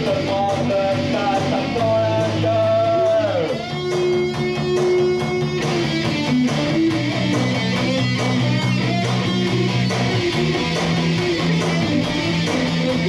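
Instrumental break of a rock song: electric guitar lead playing held notes over bass guitar and backing, with one note sliding down about three and a half seconds in.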